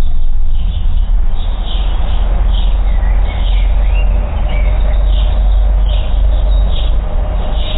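Small songbirds chirping, short high notes about twice a second with a few brief sliding calls, over a steady low rumble that is the loudest part.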